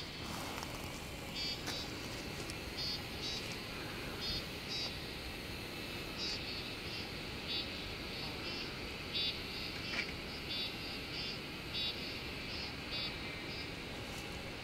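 Insects calling in short, repeated chirps, about one or two a second, over a steady low rush of background noise.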